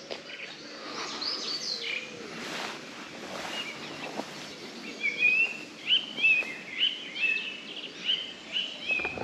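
Birds singing outdoors: a few faint high calls early, then from about five seconds in a bird repeating short chirps, two or three a second.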